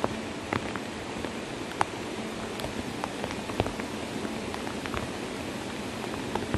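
Steady hiss of rain and flowing floodwater, with scattered sharp taps of drops landing close by.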